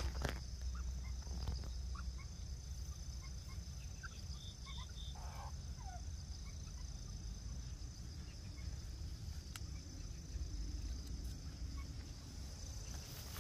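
Quiet outdoor ambience: a steady high-pitched drone and a low rumble throughout, with a few short, faint chirps around the middle.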